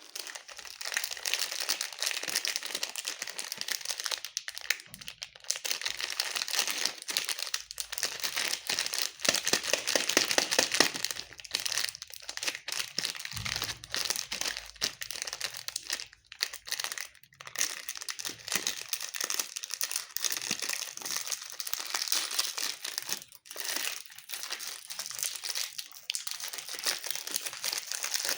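Plastic candy wrappers crinkling continuously as they are handled, a dense crackle of fine clicks that starts abruptly.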